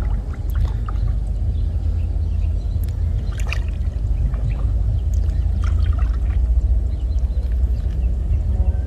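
Water splashing and trickling in irregular little bursts over a steady low rumble.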